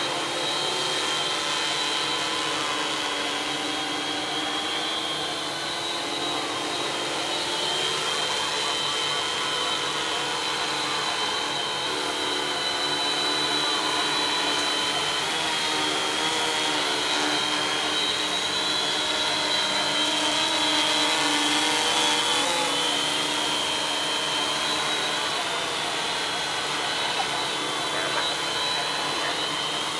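Two multirotor drones hovering, their electric motors and propellers making a steady whirring buzz, several overlapping tones drifting slightly in pitch as they hold position. It grows a little louder about two-thirds of the way through.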